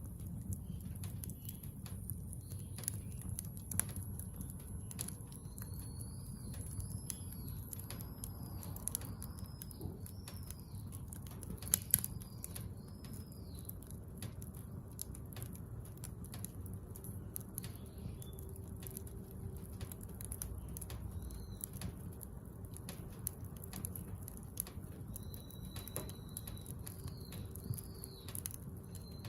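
Scrap-wood bonfire crackling with many sharp pops over a low steady rumble, one louder pop about halfway through. A bird calls in a run of short arching whistles in the middle stretch and again near the end.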